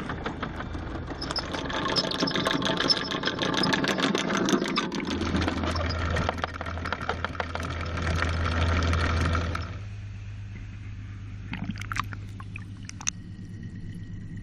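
Boat engine running with a loud rattling clatter over it. The clatter stops suddenly about ten seconds in, leaving the engine's steady low hum and a few scattered clicks.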